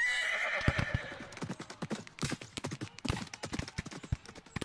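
Horse sound effect: a horse whinnies for about a second, then its hoofbeats clop off and fade as it rides away.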